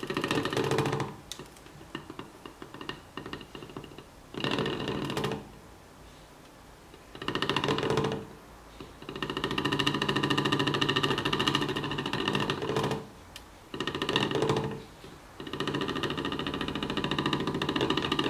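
Homemade three-piston Stirling engine running a magnet-and-coil generator, its oscillating magnet rattling fast against the plastic coil holder. The rattle comes and goes in stretches, short ones at first, then longer from about nine seconds in and again near the end: the sign of the magnet colliding with the plastic part.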